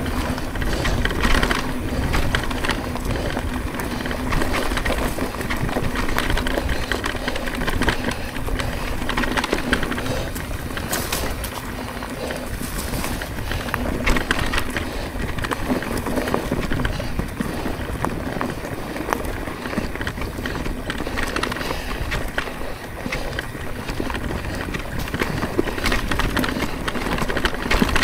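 Electric mountain bike being ridden along a trail: continuous tyre and wind noise with scattered clicks and rattles, over a steady low hum.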